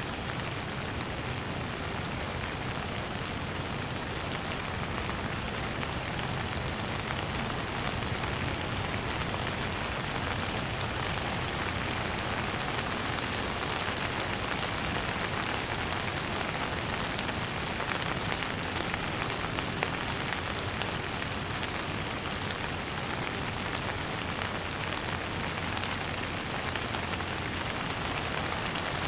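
Steady rain falling and pattering on a surface, a dense, even hiss with many small drop ticks.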